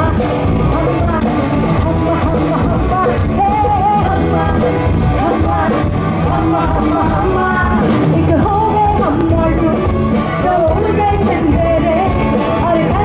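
Live pop music: a woman singing into a microphone over loud amplified backing music with a heavy bass.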